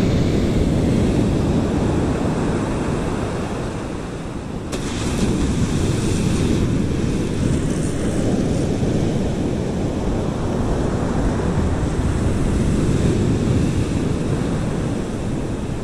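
Ocean surf breaking and washing up the beach, a steady rushing wash that dips and then swells louder again about five seconds in, with wind buffeting the microphone.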